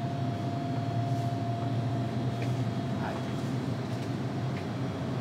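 Steady low hum with a thin steady tone above it: the room tone of a small shop with its drinks coolers and air conditioner running.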